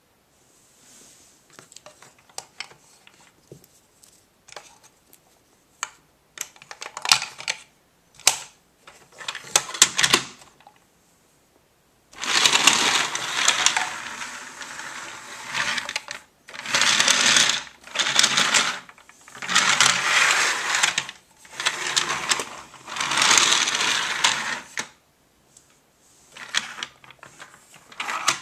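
Plastic clicks and knocks of a toy being handled, then a plastic toy train running along plastic track: a rattling rumble in stretches of one to two seconds with short breaks between them.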